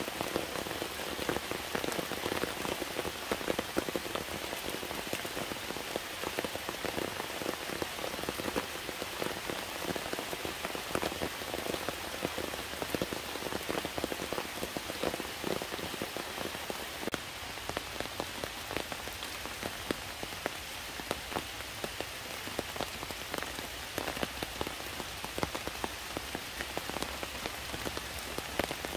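Heavy rain falling steadily, a continuous hiss dotted with many individual drop hits.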